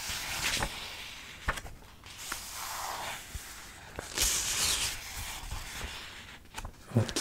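Pages of a paperback book rustling and being turned close to the microphone: several soft bursts of papery hiss with a few light ticks.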